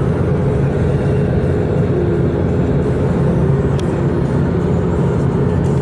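Steady engine and road noise heard from inside a moving car's cabin.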